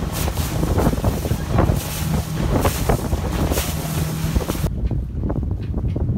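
Motorboat running at high speed over choppy water: a steady engine drone under heavy wind buffeting on the microphone. About four and a half seconds in the sound cuts abruptly to a duller low rumble.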